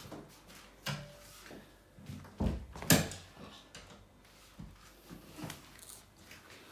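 Wrapped home multi-gym parts being handled in their cardboard packing box. There are a few scattered knocks and clunks, the loudest about three seconds in.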